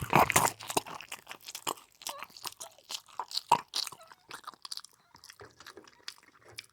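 Mouthful of waffle being bitten and chewed with wet crunching, dense at first, then thinning and getting quieter.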